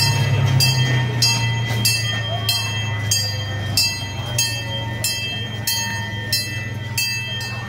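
Miniature ride-on park train passing at low speed: a steady low engine hum that slowly fades as it goes by, with a sharp clack repeating about every two-thirds of a second.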